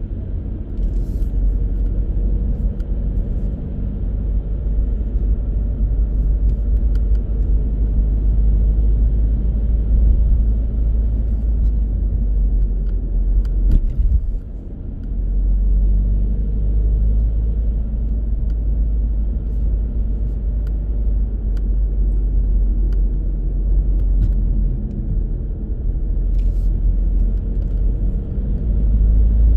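A car driving on city roads: a steady low rumble of engine and tyre noise, easing briefly about halfway through before picking up again.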